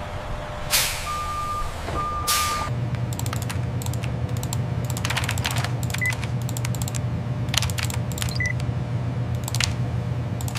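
Two bursts of hiss, each with a long steady electronic beep, followed by computer keyboard typing in irregular bursts over a steady low hum. Two short, higher beeps come midway and near the end.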